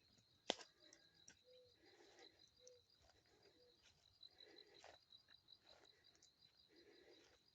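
Faint insect chirping: a steady, rapid, high-pitched pulse, with one sharp click about half a second in and a few soft rustles.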